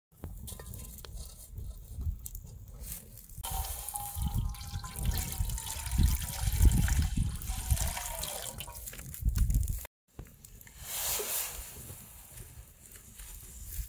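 Water splashing and trickling, with irregular low knocks of handling. There is an abrupt break about two-thirds of the way through, then a short rush of water.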